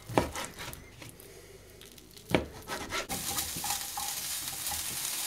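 Chicken breast sizzling in a frying pan, a steady hiss that starts about three seconds in. Before it come two sharp knocks, a second or two apart.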